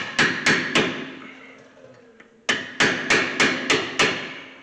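Hammer blows on a hand impact screwdriver, driving out a stuck Phillips screw that holds the brake rotor. Four quick metallic strikes, a pause of about a second and a half, then six more at a steady beat of about three a second, each with a short ring.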